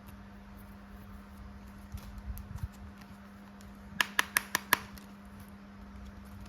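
Action figure being handled: scattered faint clicks, then five sharp clicks in quick succession about four seconds in, over a steady low hum.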